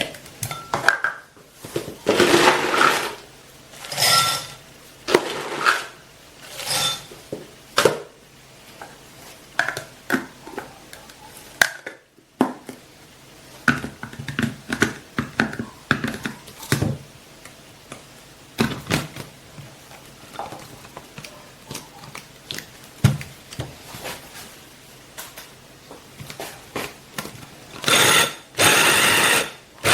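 Clatter and knocks of the parts of a glass-bowl electric food chopper being handled: bowl, blade insert and motor lid set down and fitted. Near the end its motor runs in a short burst, stops briefly, then starts again.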